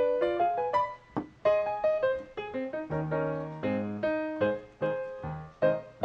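Background music: a quick piano melody of short, separate notes.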